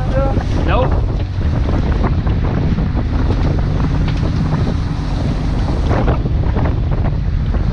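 Boat engine running steadily under way, a deep constant rumble, with wind buffeting the microphone and the rush of the wake.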